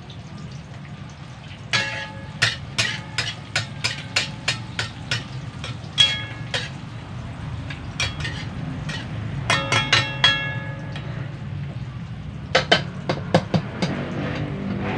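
A metal utensil clinking and stirring against a metal wok, each strike ringing briefly; irregular clinks, a few a second, with a pause after about 11 seconds and a last few near the end. A steady low hum runs underneath.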